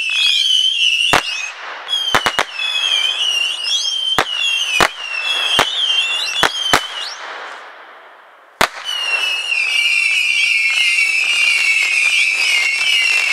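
Black Cat Cat-A-Pult missile cake firing whistling mini-rockets: many high, wavering whistles overlap, punctuated by sharp reports, three close together about two seconds in and several more singly. The whistling dies down around eight seconds in, then a bang and a denser swarm of whistles starts up.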